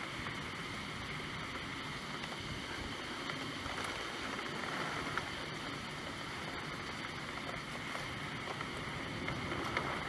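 Steady rainfall, an even hiss of falling rain with a few faint ticks of individual drops.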